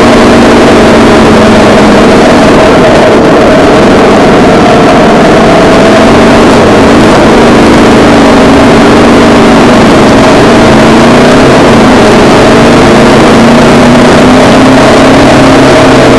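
Motorcycle engine running at riding speed, its note rising and falling a little with the throttle, under loud steady wind and road rush on the camera's microphone.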